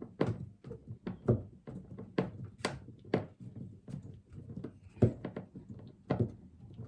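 Irregular run of sharp clicks and knocks as screws are fitted back into a fridge freezer's plastic panel, about two a second, with two louder knocks near the end.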